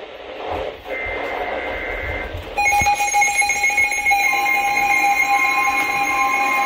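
Emergency Alert System alert starting: a burst of buzzy digital header data, then about two and a half seconds in a loud, steady electronic attention tone begins and holds, with a second pitch joining at about four seconds.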